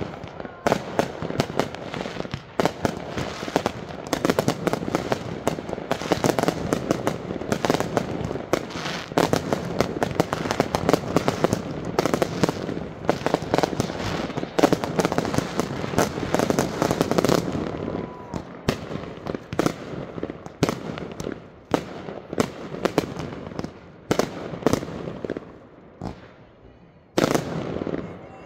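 Aerial fireworks firing and bursting in rapid succession: dense, overlapping bangs for about the first two-thirds, thinning to scattered single bangs, then one last loud burst near the end.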